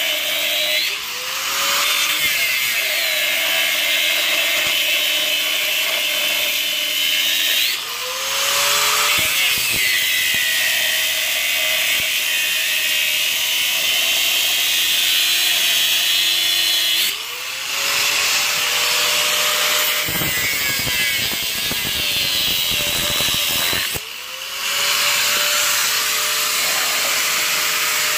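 Corded Makita angle grinder with a cutting disc slicing into steel upper control arms, notching them so hydraulic cylinders can pass through. The motor whine drops in pitch as the disc bites under load and climbs back when the cut is eased off, with a few brief lifts of the disc.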